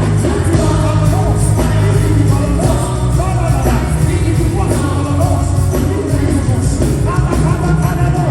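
Live worship music from a band with strong bass, and singing voices over it.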